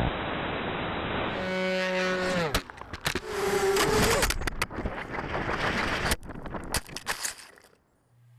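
Onboard audio from a 250-size FPV racing quadcopter: the motors whine and shift in pitch, with a run of sharp knocks and clatter as it crashes through branches and into grass. One motor tone falls away about two and a half seconds in.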